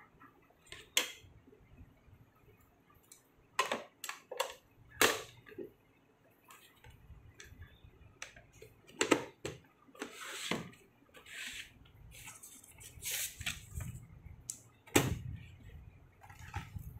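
Scattered plastic clicks, taps and short scrapes as the black plastic frame and glass of a Canon LiDE flatbed scanner are handled and pressed back into the casing during reassembly.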